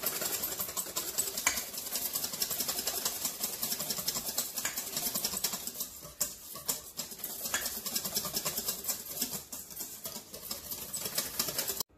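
Wire whisk beating heavy whipping cream by hand in a metal bowl: a fast, steady clatter of the wires against the bowl, stopping abruptly near the end.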